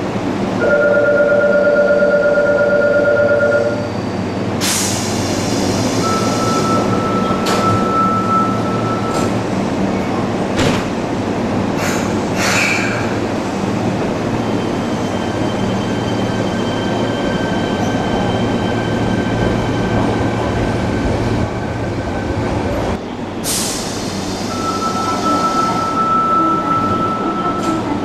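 Train and platform screen doors closing over the steady hum of a standing electric subway train: a pulsing two-tone door-closing chime for about three seconds, then a burst of hiss and a steady high warning tone as the doors slide shut, with several clunks as they close. Near the end there is another hiss and the same steady tone.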